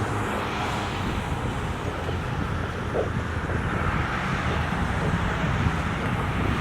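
Steady outdoor background noise: a low rumble with hiss, like wind on the microphone or distant traffic.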